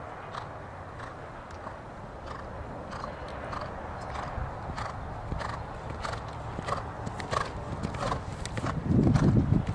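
A horse cantering on sand footing, its hoofbeats a soft regular beat about every 0.6 s that grows louder as it comes nearer. A loud low rumble joins near the end.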